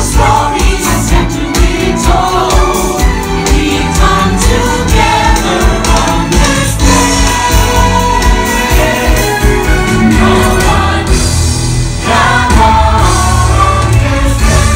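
Stage-show song: a choir of voices singing over a band track with a strong, steady bass beat, played loud.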